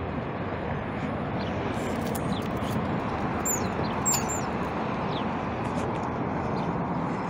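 Steady rushing roar of a jet airliner passing overhead, with a few short, high, falling chirps about three to four seconds in.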